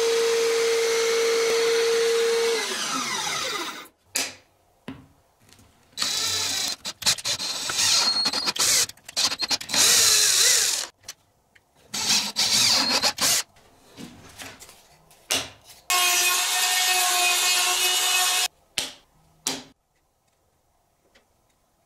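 An electric belt sander running steadily, then switched off and spinning down with a falling whine. Then an electric drill with a long spiral wood bit boring into a thin wooden disc in several bursts of a few seconds each.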